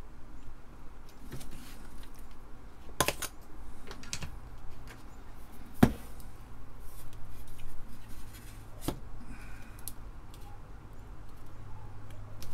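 A printed circuit board being handled on a workbench: a few sharp clicks and knocks as it is turned over and set down, the loudest about halfway through. A faint low hum comes in a few seconds in.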